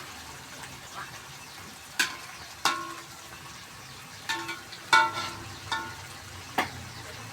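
Tomato sambal sizzling in a frying pan while being stir-fried, with a spatula clinking against the pan about eight times, each clink ringing briefly; the loudest comes about five seconds in.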